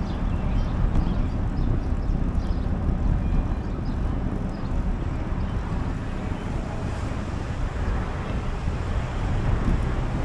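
Steady low rumble of wind on the microphone of a moving bicycle, mixed with passing road traffic.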